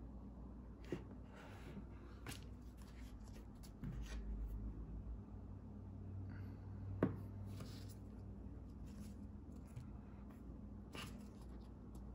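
Faint handling noise of a smartphone with a screen protector being held and turned on a table: light rubbing and scattered small clicks, a low bump about four seconds in and one sharper click about seven seconds in.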